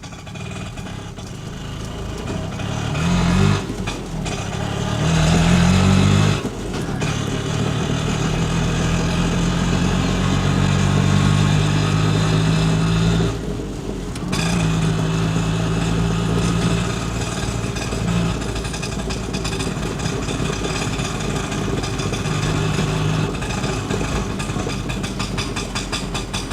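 Indian auto rickshaw's small engine running, revving up twice in the first few seconds and then running steadily, with a brief drop in the middle.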